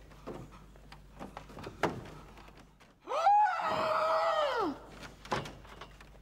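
A man's loud wordless cry, lasting nearly two seconds about three seconds in, that rises in pitch, holds and then slides down. Scattered thuds come before it and one more after.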